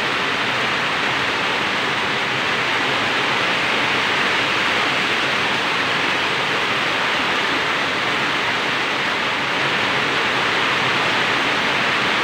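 Heavy rain and muddy floodwater rushing down a road and cascading over a bank, a steady rushing hiss of water that never lets up.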